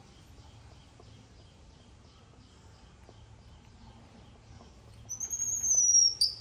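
Baby macaque giving one long, high-pitched squealing call in the last second and a half, sliding slightly down in pitch and ending in a short sharp chirp.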